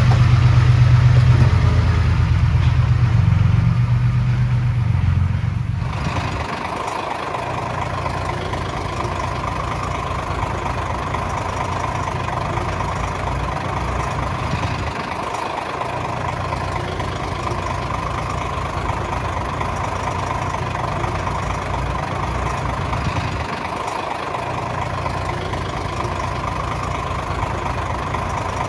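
Heavy diesel earthmoving machinery running: a loud, low engine note for the first six seconds or so, then a steadier, somewhat quieter engine sound with a steady whine. It dips briefly twice.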